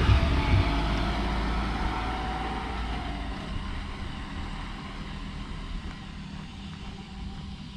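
Small white van driving past close by and moving away, its engine and tyre noise fading steadily. A faint whine sinks slightly in pitch as it goes.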